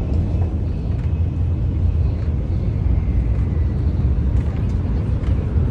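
Shinkansen bullet train running, heard inside the passenger car as a steady low rumble.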